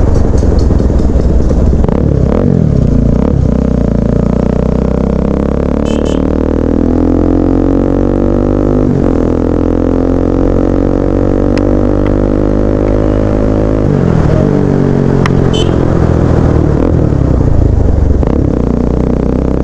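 Motorcycle engine running under way, its pitch climbing slowly as it pulls. There are breaks about halfway through and about two-thirds of the way through, where the pitch drops as if at gear changes.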